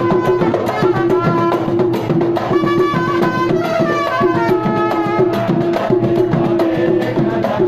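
Live street band of frame drums and a large strap-hung drum beating a fast rhythm, with a wind instrument playing a melody of stepping and sliding notes over a held note.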